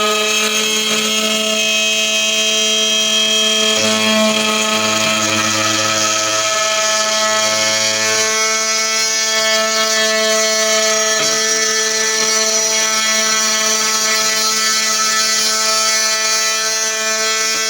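CNC machine running: a steady motor whine made of several held tones, whose pitches shift a few times as the machine changes its moves.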